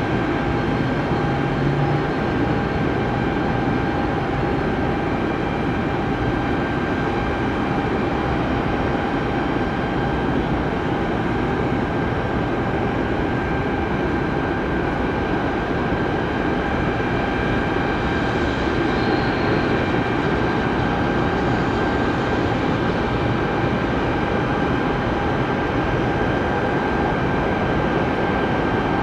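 Jet airliner engines running steadily: a constant rumble with a steady whine over it, neither rising nor falling.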